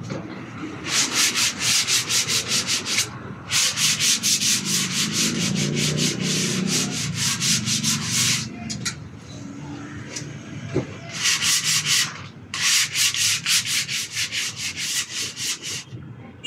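Edge of a wooden board being sanded by hand, with quick back-and-forth scraping strokes about five a second. The strokes come in several runs with short pauses between them.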